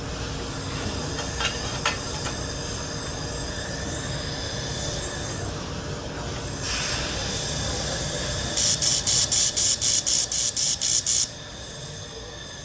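IPG LightWELD handheld laser welder adding filler material to a thin metal part: a steady hiss with a faint high whine. About eight and a half seconds in comes a loud, rapid run of pulses, about four to five a second for nearly three seconds, which then stops abruptly, typical of the laser firing in pulse-weld mode.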